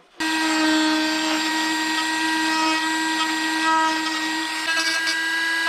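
Small handheld rotary tool running with a steady whine as it grinds down fiberglass on a fender around tucked-in wires. It starts just after the beginning.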